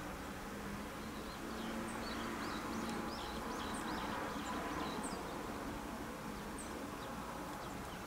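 Outdoor field ambience: a steady background hiss and rumble, with many faint, short, high chirps scattered through it and a faint low hum in the first few seconds.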